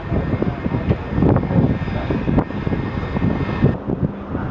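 Jet engines of a taxiing McDonnell Douglas MD-80-series airliner running, a steady whine under gusts of wind on the microphone. About three and a half seconds in the sound cuts to a quieter, duller background.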